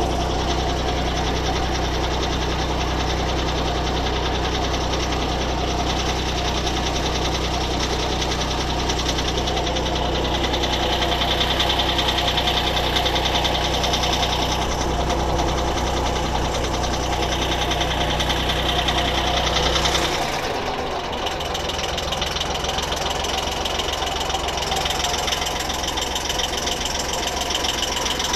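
Engine of a pompong, a small wooden motorboat, running steadily while the boat is under way. About twenty seconds in, the deep low note drops away and the engine note changes.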